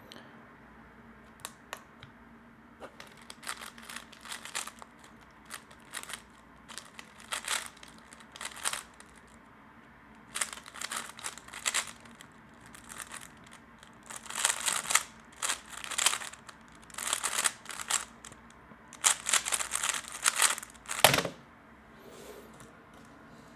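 3x3 Rubik's cube being turned fast during a speedsolve: quick runs of plastic clicking and rattling as the layers turn, in short bursts that get louder and busier in the second half. A single thump near the end.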